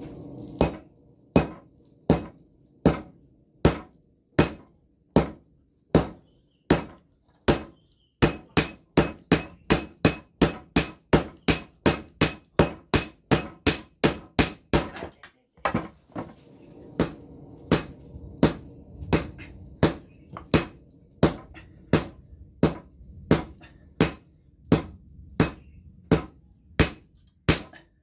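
Hand hammer striking red-hot breaker-chisel steel on a small anvil: sharp metallic blows, steady at first, quickening to about two and a half a second midway, then a brief pause and a slower run again. A low rumble runs underneath in the second half.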